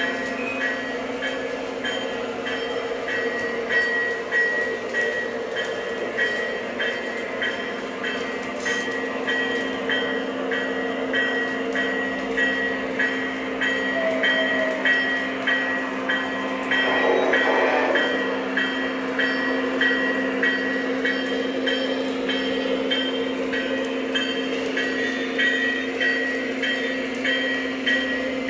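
O-gauge model train, led by a model 3GS21B genset locomotive, running slowly on its track: a steady hum with a regular light clicking about twice a second, and a brief louder, noisier stretch about 17 seconds in.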